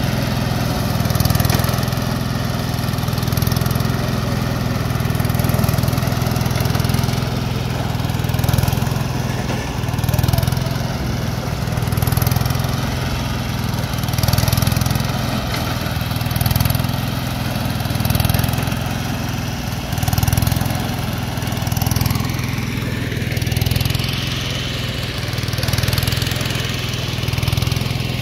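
Small single-cylinder engine running a sugarcane leaf-stripping machine, with the chatter of the stripper working as cane stalks are fed through. Its sound swells about every two seconds as stalks are pushed in.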